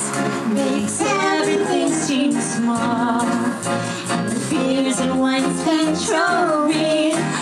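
A young girl singing into a handheld microphone along with a backing music track, her voice gliding between held notes.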